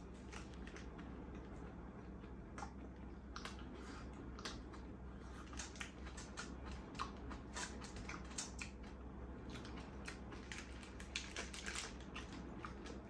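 Close-miked eating of a burger: irregular wet mouth clicks and smacks of chewing, coming faster and sharper from about five seconds in, over a low steady room hum.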